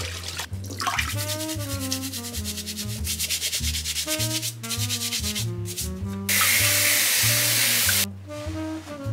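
Vegetable scrubbing brush rubbing over carrots in quick back-and-forth strokes. Past the middle, a kitchen tap runs in a steady rush for about two seconds as the carrots are rinsed, over background music.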